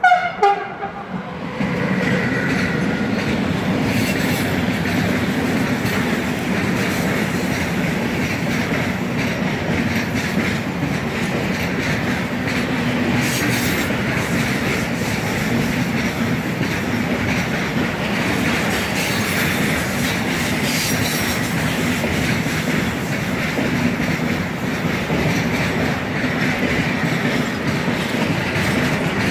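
An electric locomotive sounds a short horn blast that drops in pitch as it passes. A long freight train of intermodal wagons then rolls by with a steady rumble and clatter of wheels over the rails.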